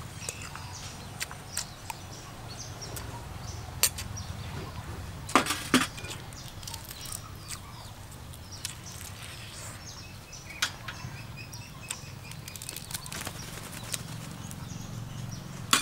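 Eating sounds: scattered smacks and sharp clicks from chewing and from pulling cooked food apart by hand, the loudest pair about five and a half seconds in, over a steady low background hum.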